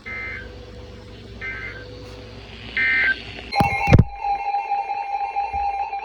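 Three short Emergency Alert System (SAME) digital data bursts, about 1.4 s apart, of the kind that mark the end of an alert message. Then a sudden loud click and a switch to a steady electronic tone with several pitches.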